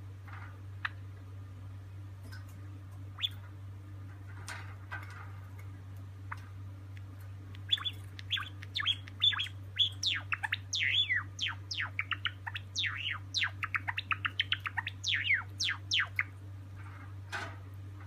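Silver Java sparrow singing: a few scattered notes, then from about eight seconds in a fast run of quick, clicking and tinkling notes lasting about eight seconds, with one last note near the end.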